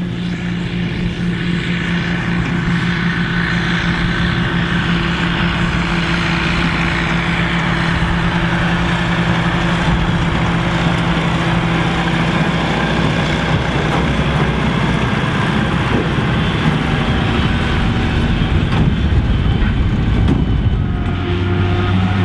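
A New Holland tractor's diesel engine running steadily as it pulls a silage trailer past at close range, growing a little louder in the first half. About a second before the end, the sound switches to a different steady engine note.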